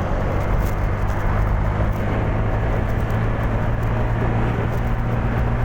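Honda Genio scooter's single-cylinder engine running at a steady speed while riding, a constant low hum under a haze of wind and road noise.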